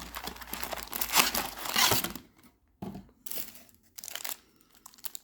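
Plastic wrapping and cardboard of a trading-card blaster box crinkling and tearing as the box is opened, dense for about the first two seconds, then scattered crackles.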